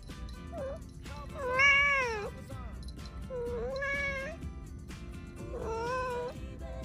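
House cat meowing insistently: a short chirp, then three long meows that rise and fall in pitch, the first long one the loudest, over background music.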